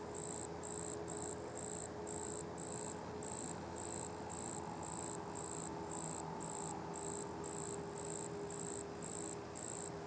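Insect chirping steadily in an even rhythm, about two short, high-pitched chirps a second, over a faint background hiss.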